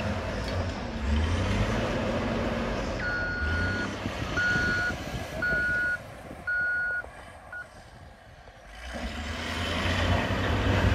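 Wheel loader's diesel engine running, then its reversing alarm beeping about once a second, four full beeps and a short fifth, before the engine noise falls away and builds again near the end.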